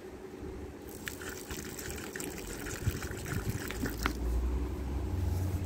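Water poured from a large plastic bottle into a small dish on the ground, gurgling and splashing for about three seconds. A vehicle's low rumble builds near the end.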